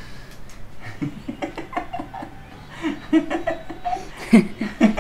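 People laughing in short, repeated bursts of giggling and chuckling, starting about a second in.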